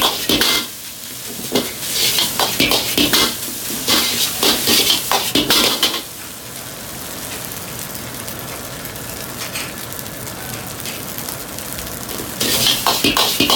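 Fried rice sizzling in a carbon-steel wok as a metal ladle scrapes and knocks against the pan during stir-frying. About six seconds in the clatter stops, leaving a steady sizzle over the gas wok burner, and the ladle work starts again near the end.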